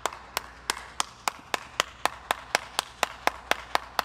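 One person clapping hands in a steady rhythm, about four claps a second, the pace quickening slightly.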